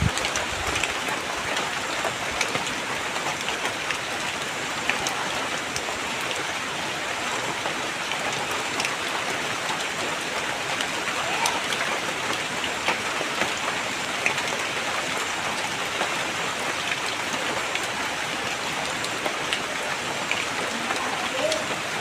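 Steady rain falling, with fine drops ticking on a surface throughout. A low rumble underneath dies away about a second in.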